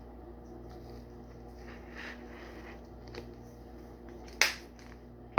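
Small kitchen handling sounds of seasoning containers: faint scattered shaking and rustling, then a single sharp knock about four and a half seconds in, over a steady low electrical hum.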